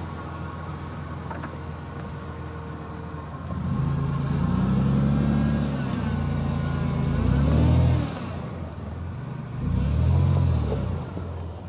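Toyota Land Cruiser 90's engine running at low revs as the 4x4 crawls over rutted off-road ground, getting louder about a third of the way in and pulling harder twice, the second time near the end.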